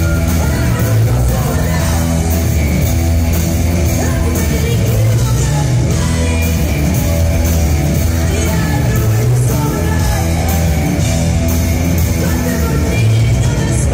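Live rock band playing at full volume: electric guitars, bass, a drum kit keeping a steady beat and keyboards, with a woman singing lead.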